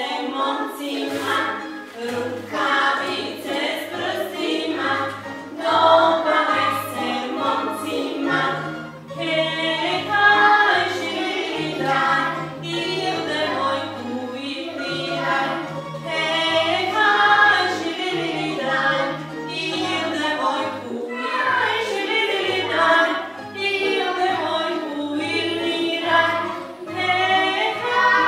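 Voices singing a folk dance song together, over an instrumental accompaniment whose bass alternates between two low notes.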